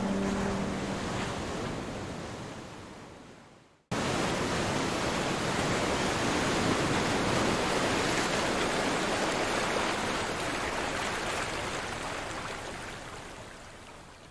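A steady, even rushing noise like surf, joined at the very start by the fading tail of a few held musical notes. It fades out over the first four seconds, cuts back in abruptly and slowly fades away toward the end.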